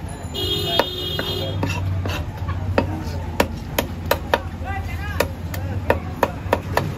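Heavy fish-cutting knife striking a wooden chopping block as climbing perch are scaled and cut: sharp knocks, sparse at first and then about two a second, over a steady low hum.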